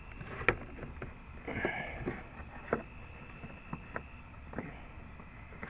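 A steady high trill of crickets, with scattered small clicks and taps from handling the license plate bulbs and sockets. The loudest click comes about half a second in.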